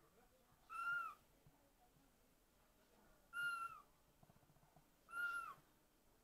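Kitten meowing: three short, high-pitched mews about two seconds apart, each dropping in pitch at the end.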